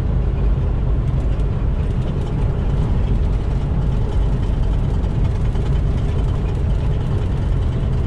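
Steady drone of a semi truck's diesel engine and road noise heard inside the cab while cruising along a highway.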